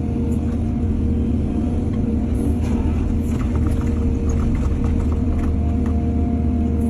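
Excavator's diesel engine running steadily with a deep rumble, with a run of short clattering knocks about halfway through.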